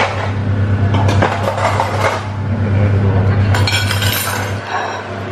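Dishes and cutlery clinking and clattering as a meal is served, over a steady low hum that stops near the end.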